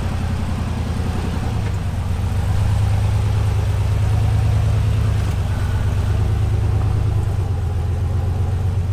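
Rock-crawler buggy's engine running steadily at low revs as it crawls up stepped rock ledges, getting a little louder about two and a half seconds in as the throttle comes on.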